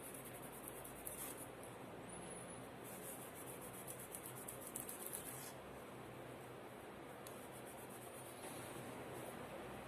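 Faint rapid scratching and rubbing with a few light clicks, as of small laptop parts being worked on by hand, likely a cloth wiping old thermal paste from the chips and heatsink.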